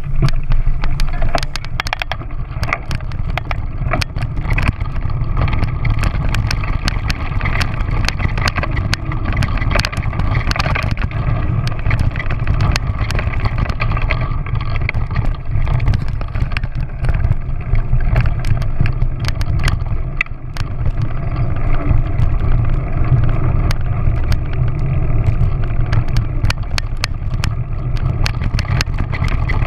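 Motorcycle ridden along a rough dirt track: a steady engine and wind rumble, broken by frequent sharp clicks and rattles as it jolts over bumps.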